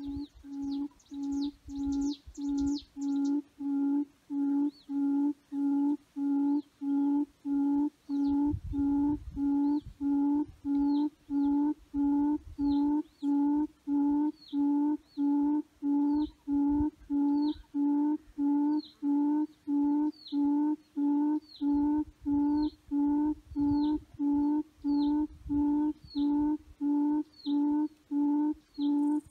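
Recorded bird call played through a loudspeaker as a hunting lure: a short low hoot repeated steadily about one and a half times a second. A few high chirps sound about a second in.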